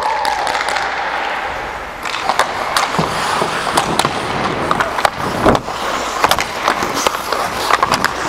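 Ice skate blades scraping and carving on rink ice, with sharp clacks of hockey sticks on the puck and the ice. There is a heavier thud about five and a half seconds in.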